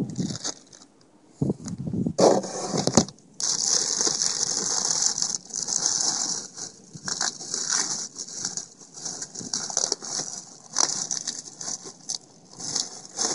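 Unboxing packaging being handled: plastic and cardboard rustling and crinkling in an uneven, hiss-like rush with scattered clicks, steady from about three seconds in.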